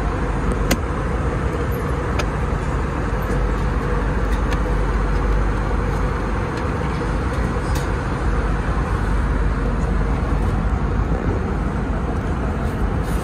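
Steady cabin noise of an Airbus A320neo in flight: an even rush of airflow and engine noise with a strong low rumble and a faint steady hum, with a few faint clicks.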